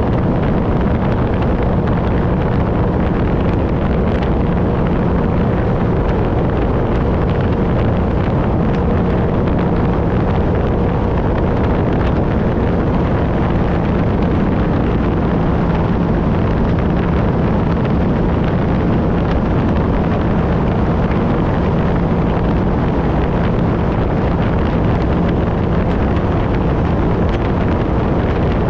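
Supercharged engine of a 2016 Sea-Doo RXP 300 personal watercraft running steadily at speed. Wind buffets the handlebar-mounted microphone and water rushes and sprays off the hull.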